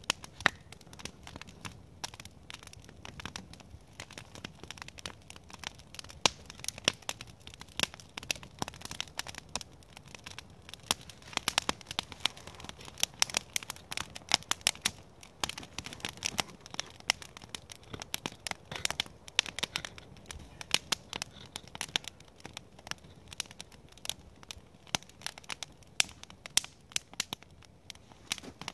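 Wood campfire crackling steadily, with many irregular sharp snaps.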